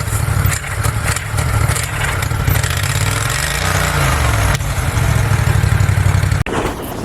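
Mini bike's V-twin engine running steadily, revving up and back down once in the middle; the sound breaks off abruptly near the end.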